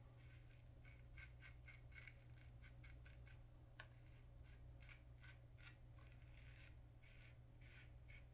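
Single-edge safety razor (Superior Lather Catcher with a GEM PTFE blade) scraping through lathered stubble in a long series of short, quiet strokes, on a diagonal against-the-grain pass.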